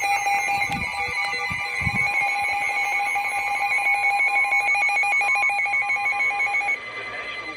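Emergency Alert System attention signal: a steady, continuous two-tone alert tone that cuts off shortly before the end.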